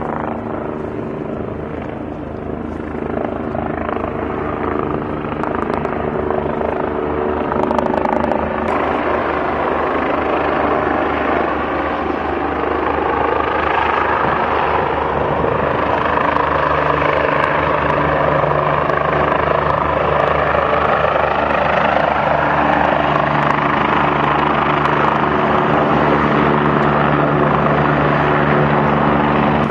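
Eurocopter EC145 twin-turbine helicopter on approach to land, its rotor and engine noise growing steadily louder as it comes in low and close.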